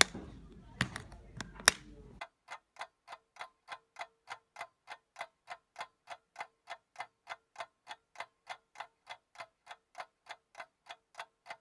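A few sharp clicks over room noise, then about two seconds in an abrupt switch to a steady, even ticking, about three ticks a second, like a clock.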